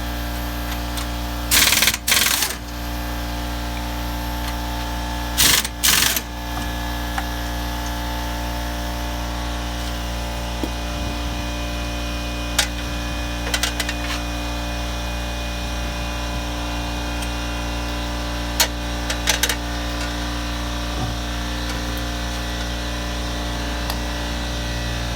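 Impact wrench rattling in four short bursts, in two pairs within the first several seconds, loosening the wheel's lug nuts, over a steady mechanical hum. A few light metallic clicks and clanks follow.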